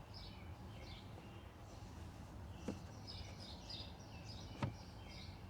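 Faint chirping of small birds in the background, over a low steady hum, with two short clicks about a third and four fifths of the way through.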